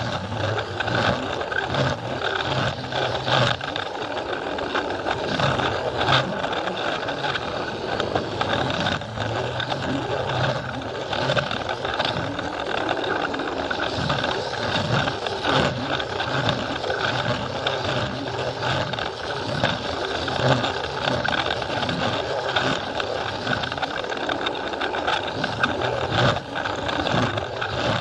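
Plarail battery-powered toy train running on plastic track: a steady motor whir with the wheels rattling and clicking over the rail joints.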